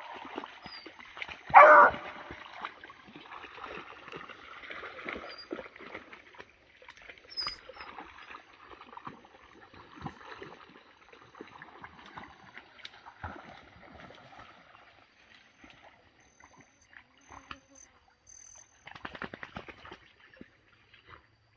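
A hunting dog barks once, loudly, about two seconds in. Then comes a long stretch of splashing and rustling as it works through reeds and shallow creek water, fading out toward the end.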